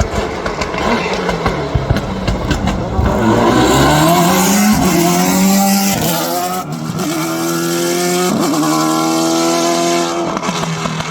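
Hill climb race car accelerating hard, its engine note climbing and dropping back at each of three quick upshifts.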